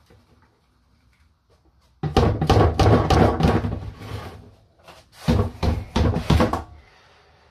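Ball-mill jar being shaken and knocked over a plastic tub to empty out ground aluminium powder: a rapid clattering rattle in two spells, starting about two seconds in and again about five seconds in.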